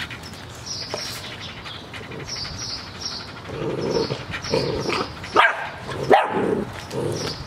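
Seven-week-old puppies yipping and barking as they squabble over a raw chicken. The calls start about halfway through, with two sharp yelps close together near the end.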